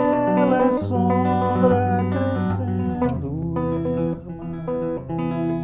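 Solo archtop hollow-body guitar playing a slow, contemplative passage of plucked chords and melody notes, with a few notes sliding in pitch.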